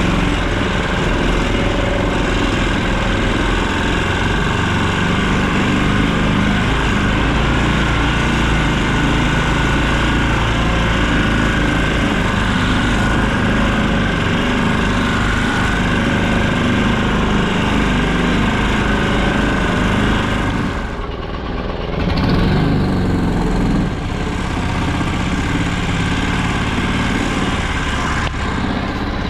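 Small engine of a karakat all-terrain vehicle running steadily, easing off briefly about two-thirds of the way through before picking up again.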